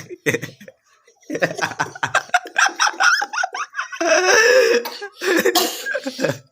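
People laughing in quick, repeated pulses that go on for several seconds.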